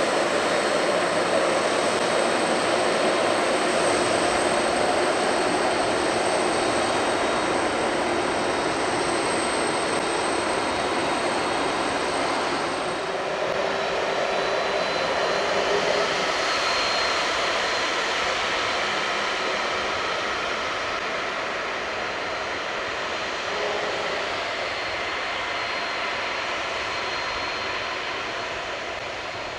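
Boeing 767-300ER's jet engines running at low thrust while the airliner taxis: a steady jet rumble with a thin high whine, easing off slightly after about 13 seconds.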